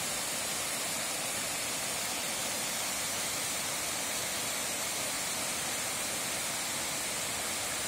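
Waterfall: water pouring down and splashing in a steady, unbroken rush.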